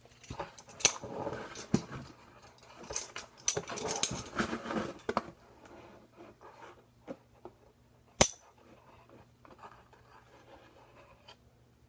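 Metal teaspoon scraping and clinking as it scoops borax powder out of a torn-open box, busiest over the first five seconds, then quieter, with one sharp click about eight seconds in.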